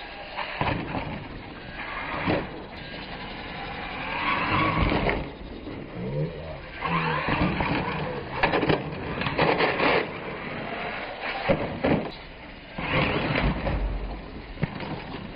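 Modified R/C monster truck running on concrete: tyres skidding and scrubbing, with repeated sudden clattering thuds as it lands off jumps and tumbles over.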